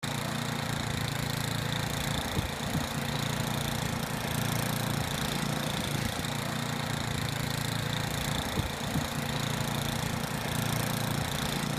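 An engine running steadily at an even speed, with a steady hiss over it.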